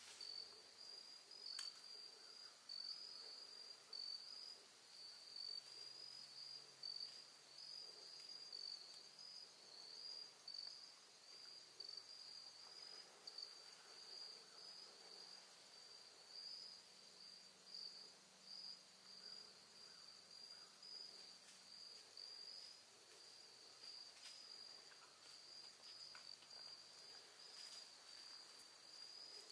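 Faint, steady high-pitched insect chorus, a continuous pulsing chirr like crickets, with a few faint ticks now and then.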